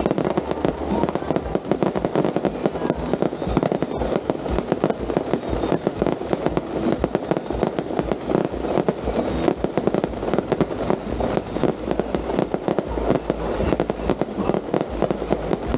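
A dense, unbroken barrage of fireworks and firecrackers: many overlapping bangs and crackles packed together without a pause.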